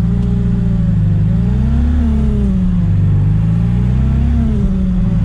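Supercharged Chevrolet Chevette four-cylinder OHC engine pulling under throttle, heard from inside the cabin, its revs rising and falling twice. The blower is running with its bypass relief valve removed.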